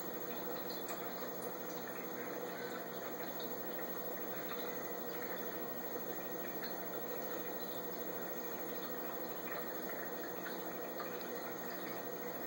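Saltwater aquarium's water circulation running: a steady sound of moving water with a faint even hum from its pump.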